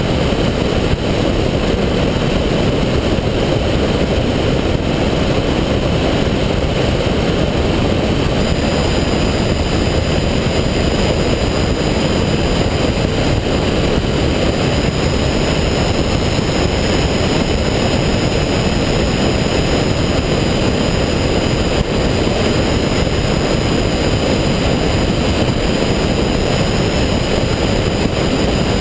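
Cessna 172 in flight: its piston engine and propeller running steadily under a continuous rush of airflow over the outside-mounted camera. A faint high whine joins about eight seconds in.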